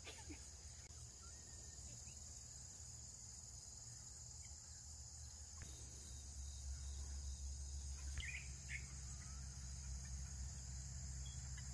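Faint, steady, high-pitched chirring of an insect chorus. A low rumble on the microphone rises from about halfway, and a few faint short chirps come about eight seconds in and near the end.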